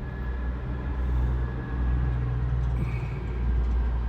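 Low, steady rumble of an idling car engine, heard from inside the cabin.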